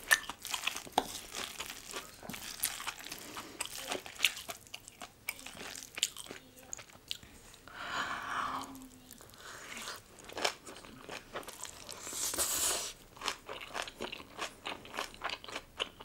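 Close-miked chewing and crisp crunching of a mouthful of yeolmu kimchi bibimbap, with many quick sharp crunches. A short hummed sound comes about halfway, and a brief high hiss about three-quarters of the way in.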